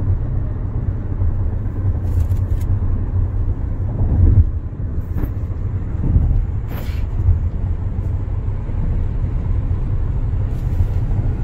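Steady low rumble of road and engine noise inside a Hyundai SUV's cabin cruising at freeway speed, with a few brief faint hisses.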